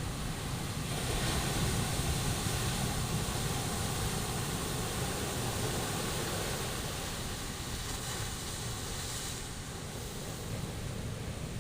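Sea surf: a steady wash of waves, swelling into a louder hiss as a wave breaks about a second in and again around eight seconds.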